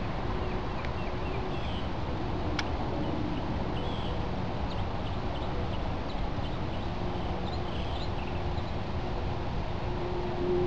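Steady outdoor background noise with a faint steady hum, and short faint high chirps of small birds scattered through it. One sharp click a little over two seconds in.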